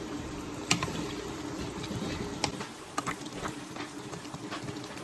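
A pot of liquid bubbling at a simmer while cooking, with a few sharp clicks scattered through it.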